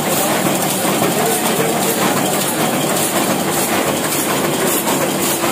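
Old Hashimoto multi-colour sheetfed offset printing press running, its rollers and feed mechanism making a dense, even mechanical noise with faint regular clicking.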